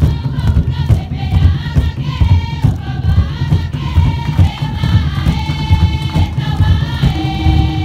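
Traditional Marquesan dance music played live: heavy drums beating steadily with a group chanting and singing over them.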